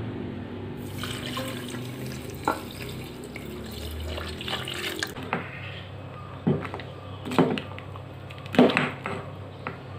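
Coconut milk pouring in a steady stream into a stainless-steel bowl. After that come several splashes and sloshes in the bowl, the loudest one near the end.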